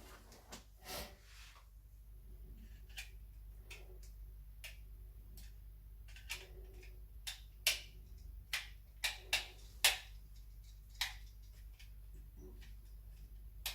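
Irregular light clicks and scrapes of a small screwdriver turning a wall switch's terminal screw down onto a wire.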